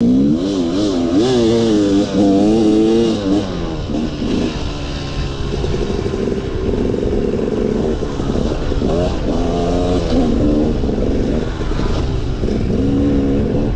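KTM 300 two-stroke dirt bike engine revving hard under riding, its pitch swinging up and down with the throttle and climbing again several times.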